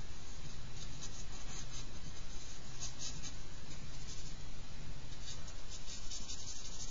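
Charcoal scratching on paper in short, quick strokes that come in clusters, thickest near the end.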